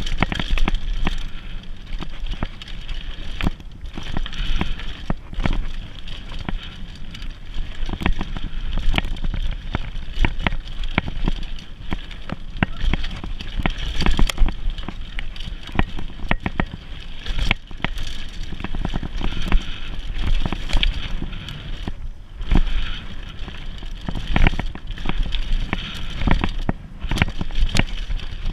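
Mountain bike riding fast down a dirt singletrack: tyres rolling on packed dirt with a steady low rumble, and frequent sharp rattles and knocks from the bike over bumps.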